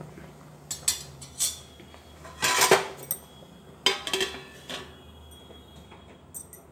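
Metal clinking and clattering of a cooking pot and its steel lid: a few light clinks, then a loud clatter about two and a half seconds in as the lid goes onto the pot, and a few more clinks a second or so later.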